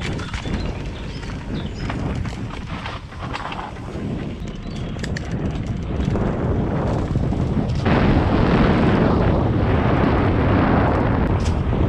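Mountain bike descending a dirt singletrack: tyres rolling over dirt and dry leaves, with clicks and rattles from the Trek Slash's frame and drivetrain, and wind buffeting the microphone. The wind noise grows louder about eight seconds in.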